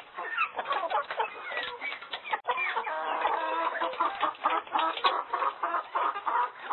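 A dense flock of birds calling at once: many short, overlapping calls with no pause between them.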